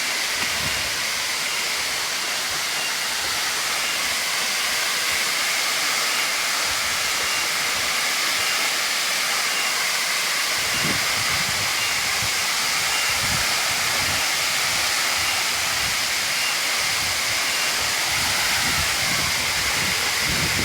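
Waterfall rushing with a steady hiss of falling water. A low rumble joins about halfway in.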